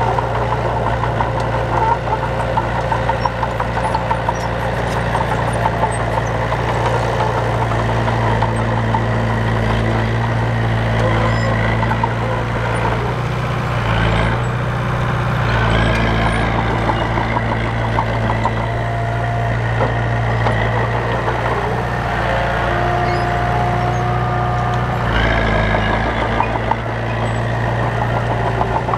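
Heavy diesel earthmoving machinery running under load: a steady low engine drone with light metallic clatter. The engine note shifts about halfway through and again near the end.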